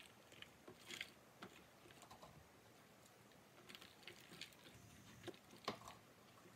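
Pre-moistened ProMix potting mix being poured from a plastic cup into a plastic seed-starting cell tray and spread into the cells by hand: faint, scattered patters and rustles, with a sharper tap near the end.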